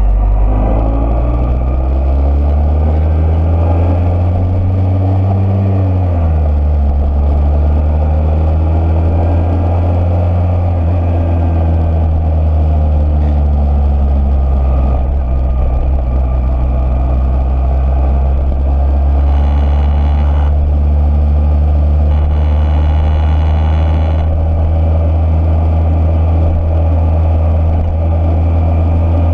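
Motorcycle engine running steadily under way, its pitch shifting just before the start and again about six seconds in. Twice near the middle a faint high steady tone sounds for a second or two.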